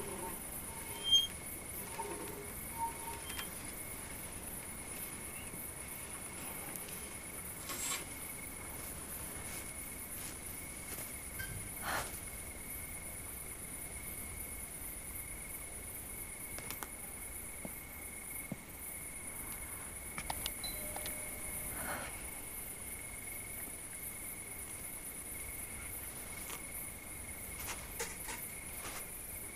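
Steady night-time chirring of crickets, with a few faint clicks and knocks scattered through it; the sharpest click comes about a second in.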